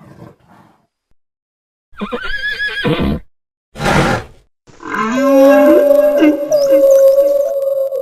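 Edited animal calls: a wavering, whinny-like call about two seconds in, a short rough burst, then a long held call made of several layered pitched tones.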